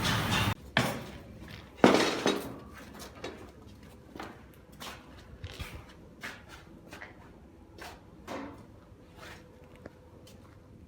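A loud steady noise stops about half a second in. Scattered knocks and clicks of objects being handled follow, the loudest about two seconds in, then fainter ones every second or so.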